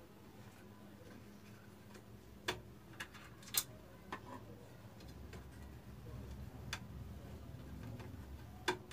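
A handful of sharp, irregular clicks and taps from handling an opened DVD player and its parts, over a low hum that grows louder about halfway through.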